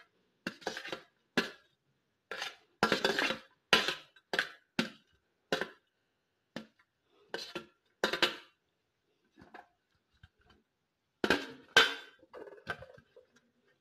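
Sliced green chillies being scraped off a stainless steel plate into a glass blender jug: irregular short scrapes and clinks of metal and glass, with a lull of a few seconds in the middle before a few more near the end.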